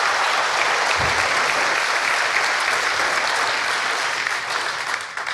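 Congregation applauding, a steady clapping that dies away near the end.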